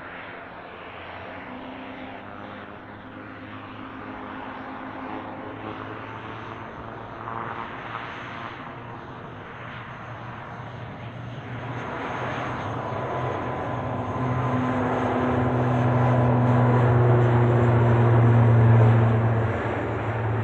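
Airbus C-295 twin-turboprop's Pratt & Whitney PW127G engines and propellers during takeoff: a steady propeller drone with a thin whine above it, growing steadily louder and peaking shortly before the end, then falling away.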